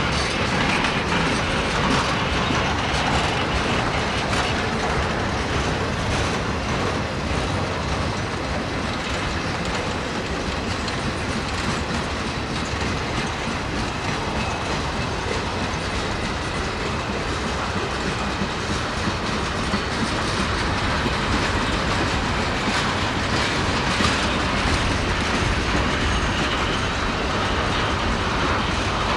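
Freight train rolling past, its steel wheels clicking over the rail joints under a steady rumble of the cars.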